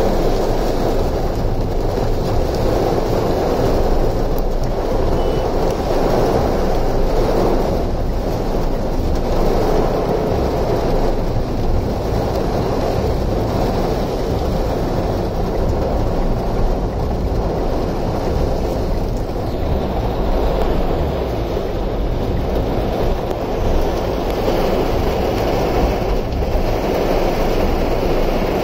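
Steady rushing noise of floodwater churning around a vehicle moving through a flooded street, mixed with heavy monsoon rain and wind.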